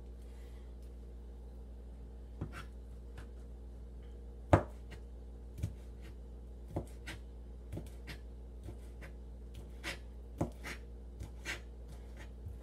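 Chef's knife chopping Chinese sausage into small pieces on a plastic cutting board: irregular sharp knocks about one a second, the loudest a little under halfway through, over a steady low hum.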